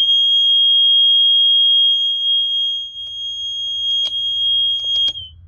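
Carbon monoxide detector sounding one steady, high-pitched alarm tone for about five seconds, with a couple of clicks near the end before the tone cuts off. The detector is faulty: it alarms with CO at zero parts per million and cannot be hushed or reset.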